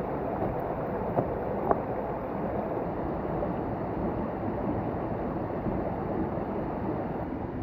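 Steady rushing of flowing water from the gorge's creek and waterfall, with two small clicks a little over a second in.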